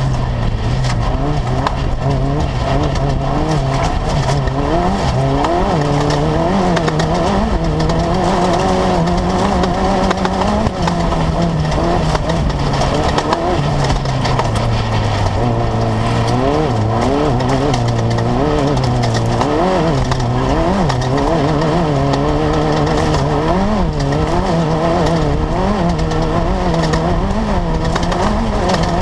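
Class 10 off-road race car's engine running hard. Its pitch rises and falls over and over as the throttle is worked, with quick ripples in the second half.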